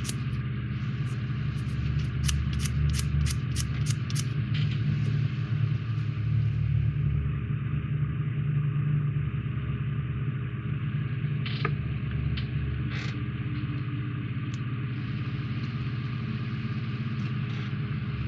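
Steady low machine hum, with a run of quick, even clicks at about three a second for the first few seconds and a few single light clicks later on.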